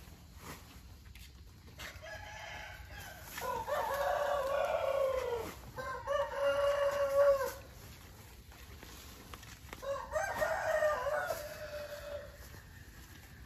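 A rooster crowing: three long crows, about two seconds each, spread across roughly ten seconds.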